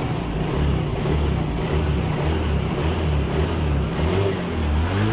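Yamaha Mio J scooter's single-cylinder fuel-injected engine idling with a low, slightly uneven throb. It runs well on fuel fed from an external infusion bottle, which points to its weak fuel pump, measured at only 10–15 psi, as the fault.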